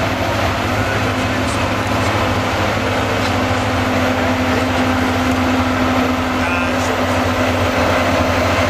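Volvo truck's diesel engine running steadily under full load as it pulls a truck-pulling weight sled, a loud, even drone that keeps its pitch.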